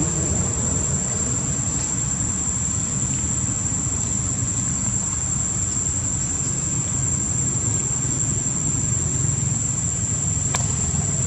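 Insects droning steadily in one high-pitched tone over a low, steady rumble, with a single sharp click near the end.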